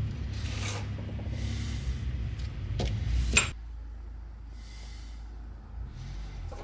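Rubbing and wiping of a cloth over hedge-trimmer gearbox parts being cleaned, in a few short strokes, with a sharp click a little over three seconds in. A low hum runs underneath and stops at about the same moment.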